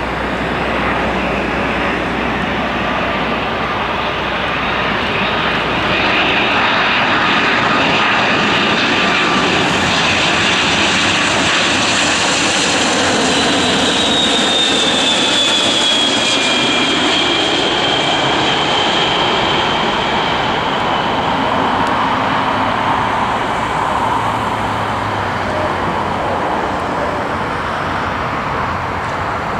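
Jet engines of a Boeing 767-300 on its landing run, a loud rushing noise that swells about six seconds in. Around the middle, a high whine slowly falls in pitch as the airliner passes, then the noise eases off a little.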